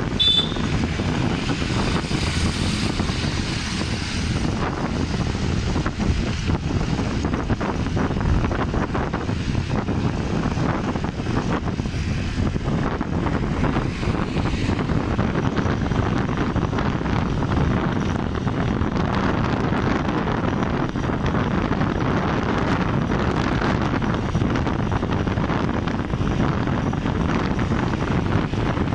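Motorcycle ride at speed: a steady engine drone mixed with wind buffeting the microphone. A brief high chirp sounds right at the start.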